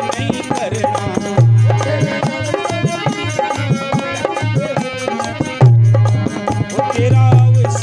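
Hindi devotional bhajan music with tabla drumming under a continuous melody, with strong low drum strokes about a second and a half in and again near the end.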